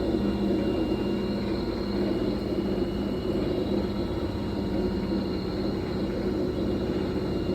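Fisher & Paykel MW059NZ top-loading washing machine running a blankets cycle: a steady motor hum and low rumble with a faint high whine.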